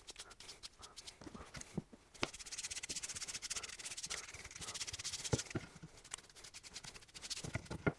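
Paintbrush bristles scrubbing linseed oil onto an old wooden frame piece, in quick, scratchy back-and-forth strokes that are busiest in the middle, with a few light knocks of wood.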